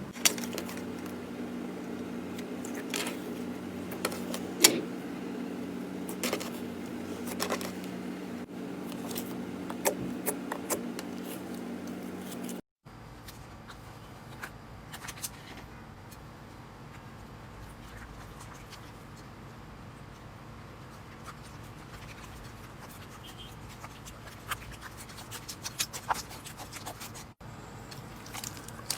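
Slime being handled and squeezed, giving irregular sticky clicks and small pops over a low steady hum. About 13 seconds in, it cuts to a quieter stretch with sparser crackles that grow busier near the end.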